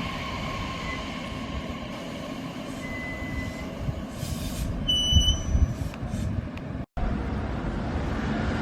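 Electric commuter train running at the station: a steady low rumble with a few short, high-pitched squeals. The sound drops out for an instant about seven seconds in.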